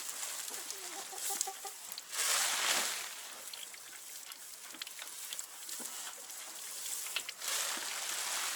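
Chickens clucking, with a loud rustling noise about two seconds in and again near the end.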